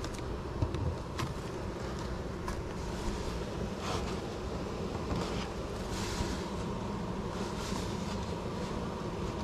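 Honeybee swarm buzzing: a steady, many-toned drone of many bees in flight, with a few faint rustles.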